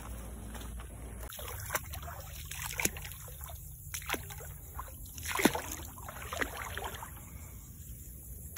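Bare feet wading in shallow swamp water: a series of irregular splashes and sloshes, the loudest about five seconds in.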